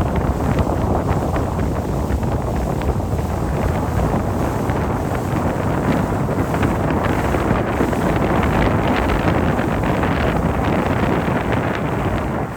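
Steady wind rush buffeting the microphone aboard a moving boat, loudest in the low range.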